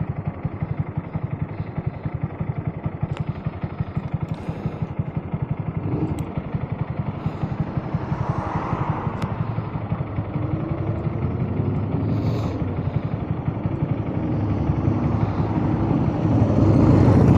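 Honda Grom's small single-cylinder engine running while riding, its exhaust pulsing rapidly and evenly. About halfway through the engine note changes and smooths out, and it grows louder over the last couple of seconds.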